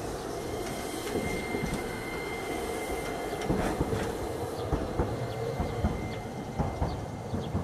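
A Hiroshima Electric Railway 5100-series Green Mover Max low-floor articulated tram passing and pulling away along street track. Its wheels clack over the track, with sharp clicks mostly in the second half, over a rumble and a thin steady high whine.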